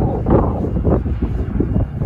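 Wind buffeting the microphone in irregular rumbling gusts.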